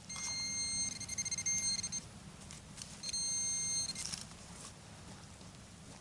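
Garrett Apex metal detector giving two steady high beeps, the first about two seconds long and the second about one second: a target signal from metal under the coil.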